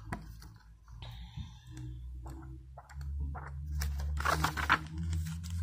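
Glossy yearbook pages being handled and turned: a few light taps and clicks, then a louder rustling swish of paper about four seconds in, over a low steady hum.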